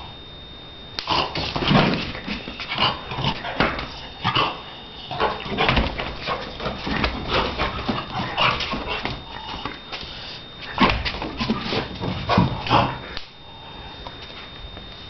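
A Shar Pei dog barking and whining in short, irregular bursts throughout, in play.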